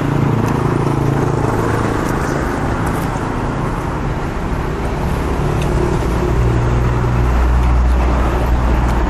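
Steady road traffic noise with a deep engine hum that grows louder in the second half.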